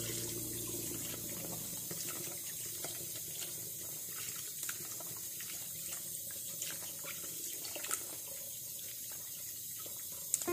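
Tap water running into a plastic bowl in a stainless-steel sink, steady, with small splashes as hands swish peeled shrimp through the water to rinse them.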